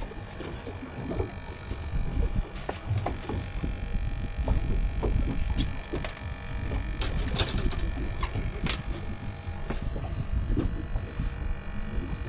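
Boat under way: a steady low rumble with scattered knocks and clatter, the loudest clatter about seven seconds in.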